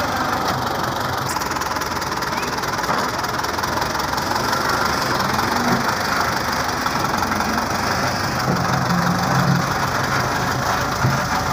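Belarus tractor's diesel engine running steadily as its front loader pushes a trolley loaded with bricks, the engine note firming up briefly a few times.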